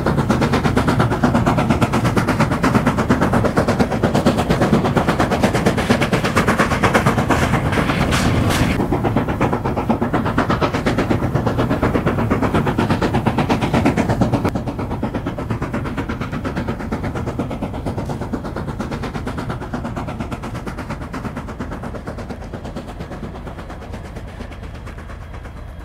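Tkt48 steam tank locomotive's exhaust chuffing in rapid beats as it pulls away. The beats drop in level about halfway through and fade gradually toward the end.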